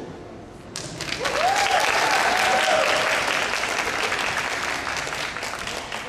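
Audience applause breaks out about a second in, with a few voices cheering over it in the first seconds, then slowly dies away.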